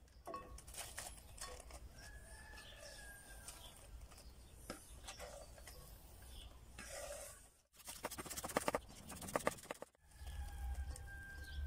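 Faint hen clucking in the background, with a quick run of light taps and clicks about two-thirds of the way in as radish slices are scraped off a wooden cutting board into a glass bowl.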